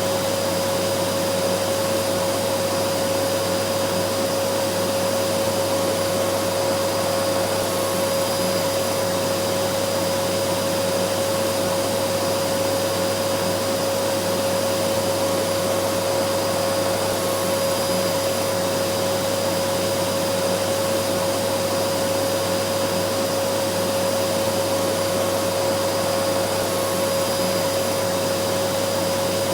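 Vacuum cleaner running steadily, a constant rushing noise with a steady motor whine.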